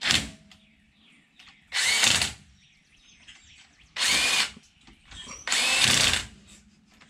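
Cordless impact wrench spinning lug nuts down onto wheel spacer adapter studs in four bursts: a short one at the start, then three of under a second each, about two seconds apart.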